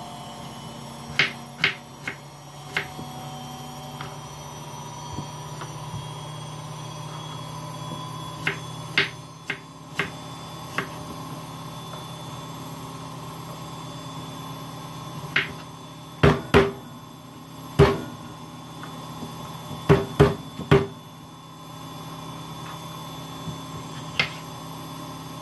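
Scattered sharp knocks of a kitchen knife and produce against a wooden cutting board, coming in small clusters of two or three, over a steady low hum.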